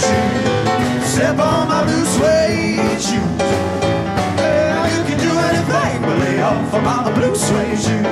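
Rock 'n' roll band music with electric guitar, upright bass and drums, and a voice singing over it.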